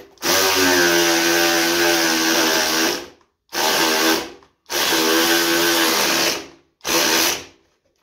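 Handheld power tool running on the motorcycle's fairing hardware in four bursts. The first burst lasts nearly three seconds and the others are shorter, with a steady motor whine.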